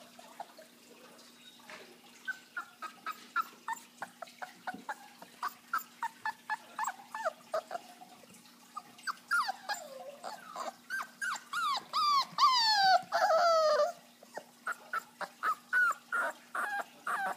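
Three-week-old chocolate Chesador puppy (Chesapeake Bay retriever–Labrador cross) crying in quick short high yips and whimpers. About halfway through the cries stretch into longer howl-like whines that slide down in pitch, loudest about three-quarters of the way in, then go back to short yips.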